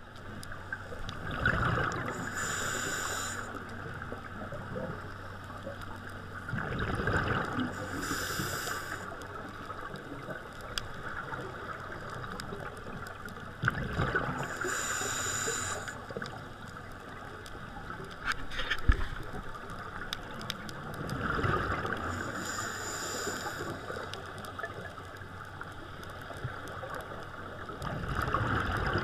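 Scuba diver's regulator breathing underwater: five breath cycles, each a hiss of air drawn through the regulator followed by a gurgle of exhaled bubbles, about every six to seven seconds.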